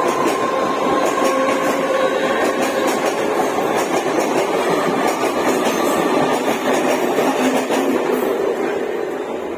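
Train running along the tracks: a steady rumble with wheel clatter and a faint whine, easing off slightly near the end.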